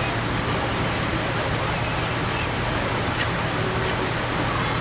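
Steady rush of sea water and wind from a moving boat, with the boat engine's low, even hum underneath.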